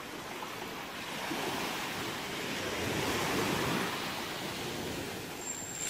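Sea surf washing onto a shallow sandy beach: a steady rush of water that swells around the middle.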